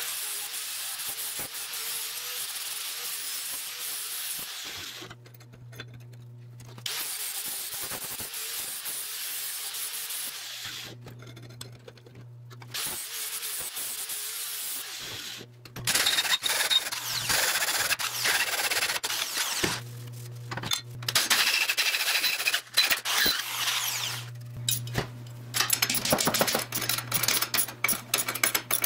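Angle grinder grinding a steel plate, running in several passes broken by short gaps. Near the end a ratchet wrench clicks rapidly while tightening a bolt.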